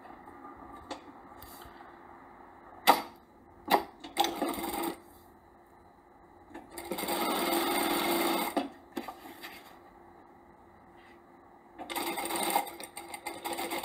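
Industrial lockstitch sewing machine stitching zipper tape onto fabric in short runs: a brief run about four seconds in, a longer run of about two seconds around the seventh second, and another near the end. Two sharp clicks come just before the first run.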